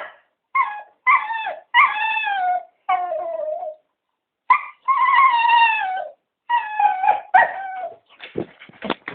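Cocker spaniels whining and howling in a string of about seven drawn-out calls that each slide down in pitch, the longest held for over a second. Near the end the calls turn shorter and rougher. The whining is the dogs begging to be taken for a walk.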